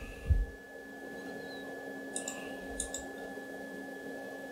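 Computer mouse button clicked twice, about half a second apart, a little after the middle, each click a sharp press-and-release. A low thump comes just after the start, over a steady faint background hum.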